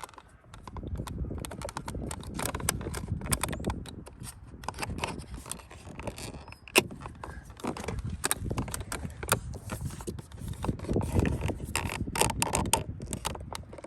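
Plastic door trim pieces and clips on a Dodge Caravan door being handled: irregular small clicks, taps and rattles, with one sharper click about seven seconds in.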